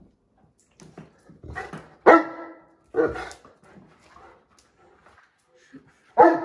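Dog barking in play: several sharp barks, the loudest about two seconds in, another about a second later and one more near the end.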